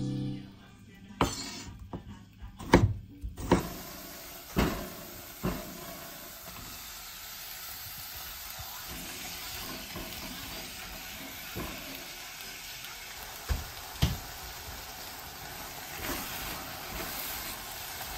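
A knife chopping tomatoes on a wooden cutting board, a few sharp taps. Then, from about three and a half seconds in, diced tomatoes and onions sizzling steadily in an enamelled cast-iron Staub pot as they are stirred, with an occasional knock of the spoon against the pot.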